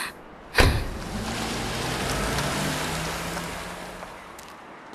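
A car passenger door shut with a single solid thud, followed by a vehicle hum that swells and fades away over about three seconds.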